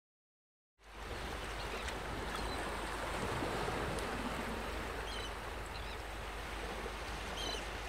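A steady rushing noise like flowing water, starting suddenly about a second in, with a few faint high chirps over it.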